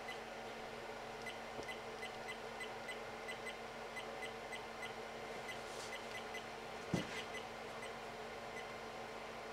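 Monoprice 3D printer's control box giving a quick run of short, high beeps as its dial is turned through the menu, over the steady hum of the printer's fan. A single knock about seven seconds in.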